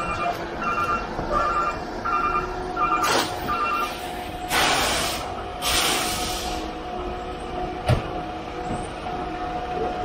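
Concrete mixer truck's backup alarm beeping about twice a second for the first three and a half seconds, over the truck's steady running engine. Two loud hissing rushes follow a little past halfway, and there is a sharp knock near the end.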